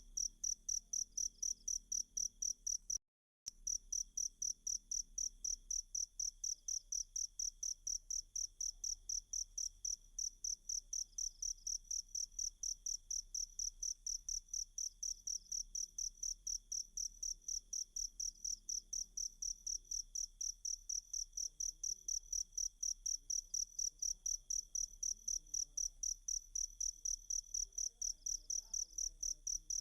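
Cricket chirping in a steady, even rhythm of high-pitched pulses, about three a second, with a brief gap about three seconds in.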